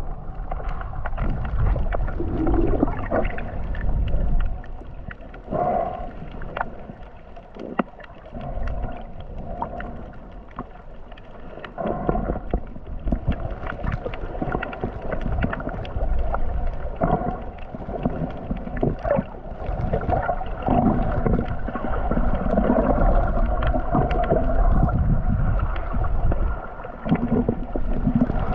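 Muffled sound of water heard through a camera's waterproof housing at and just below the surface: sloshing and gurgling with a low rumble and many small clicks and knocks, quieter for a few seconds in the middle.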